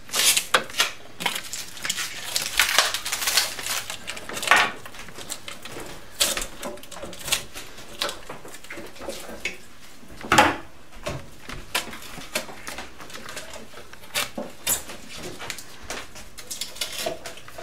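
Hands rummaging inside the open cabinet of a Project Skyhook Bitcoin vending machine: irregular clicks, knocks and rustling as packed items are pulled out, with the loudest knocks about half a second in, near 4.5 seconds and near 10.5 seconds.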